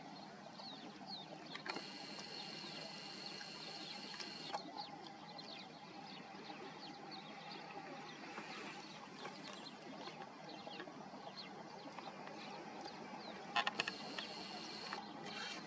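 Outdoor ambience of birds chirping over a steady low hum, with a puppy lapping water from a bowl; a few sharp clicks come near the end.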